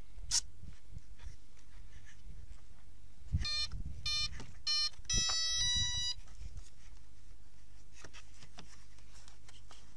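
Electric model airplane's speed controller sounding its start-up beeps through the brushless motor: three short beeps about half a second apart, then a quick run of beeps at changing pitches, the tones that signal the power system is connected and arming. A light knock just after the start.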